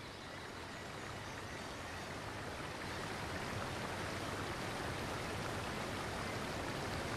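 Rushing river water, a steady hiss that slowly grows louder.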